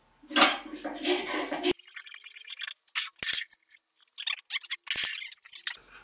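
A loud rattling rush for about a second and a half, then scattered sharp metallic clicks and clinks, from a pallet jack and its stack of iron weight plates under a knife lock-strength test rig.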